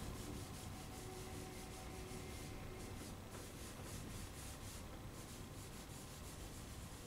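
Faint rubbing of a drawing tool stroked back and forth over Murano toned drawing paper, blending charcoal. A few stronger, scratchier strokes come near the middle.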